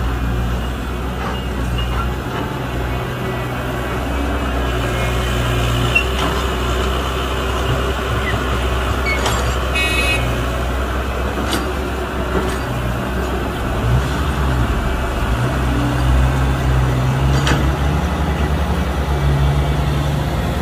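Heavy diesel engines of construction machinery running steadily, with the engine note rising and falling now and then as it works under load. A short high beep or toot sounds about halfway through.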